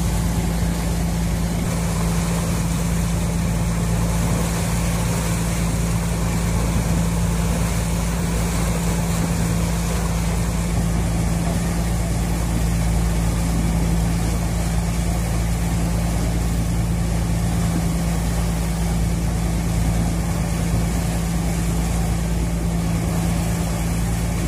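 Boat engine running steadily while under way, a constant low drone, with the rush of the churned wake behind it.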